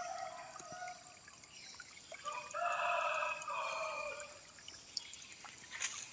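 A bird calling in the background: a short call at the start, then a longer drawn-out call of a couple of seconds in the middle.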